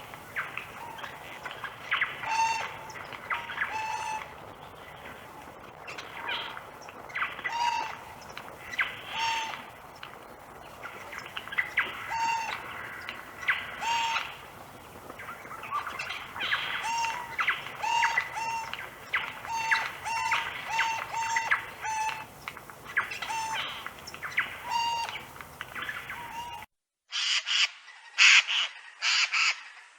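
A jay calling over and over in short pitched calls about a second apart. Near the end a louder, closer run of calls starts abruptly.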